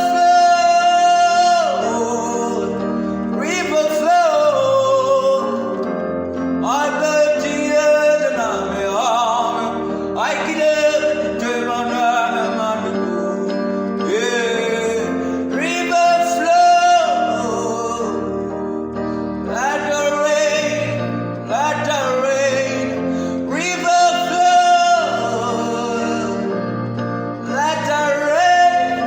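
A man singing a devotional song over instrumental accompaniment, in phrases of a few seconds each with long held, wavering notes.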